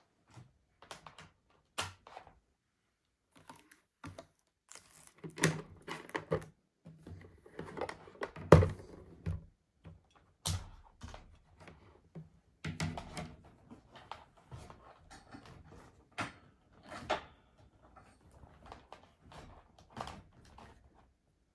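Irregular clicks and knocks of things being handled, some sharp and some dull, coming every second or so.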